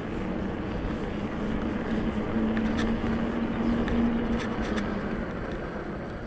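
Rockrider E-ST 900 electric mountain bike being ridden on a trail: a steady rush of rolling noise with a steady hum from the bike's motor that swells in the middle and fades near the end, and a few scattered clicks.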